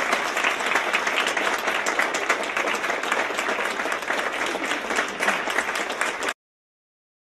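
Theatre audience applauding steadily, a dense clatter of many hands clapping, cut off abruptly about six seconds in.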